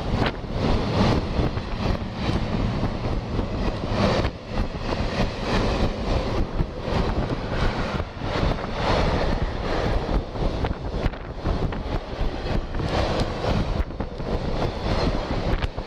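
Freight train of loaded car-carrier wagons rolling past on the adjacent track, a steady rumble of wheels on rail, mixed with wind on the microphone and inline skate wheels rolling on wet asphalt.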